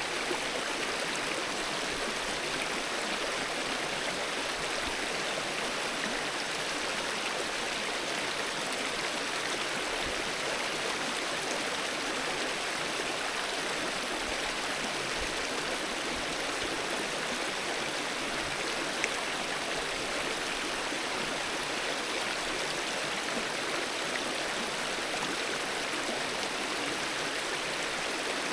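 Mountain river flowing, a steady rush of water over stones.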